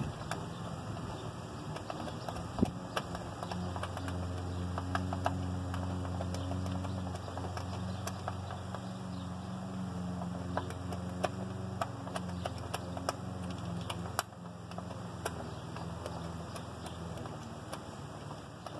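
Hand tools clicking and tapping on metal bolts and brackets on an engine's intake manifold, in irregular single clicks with a few quick clusters. A steady low motor hum runs underneath and drops away about two-thirds of the way through.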